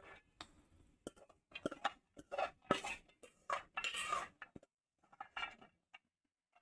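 Kitchen utensils clinking and scraping against a mixer jar as soaked chana dal is put into it: a run of separate knocks and short scrapes, loudest in the middle.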